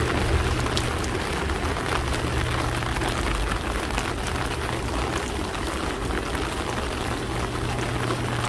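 Steady rain falling, with many individual drops ticking sharply over the hiss. A steady low hum runs underneath.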